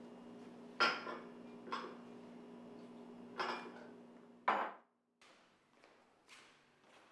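Dishes being washed at a kitchen sink: four sharp clinks and clatters of crockery over a steady low hum. The sound then cuts off sharply to near quiet with a few faint taps.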